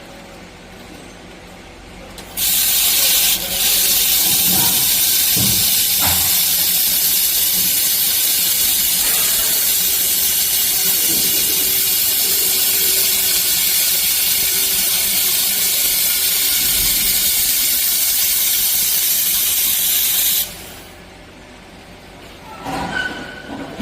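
Steady, loud gas hiss from a robotic laser welding system. It starts suddenly a couple of seconds in and cuts off sharply a few seconds before the end.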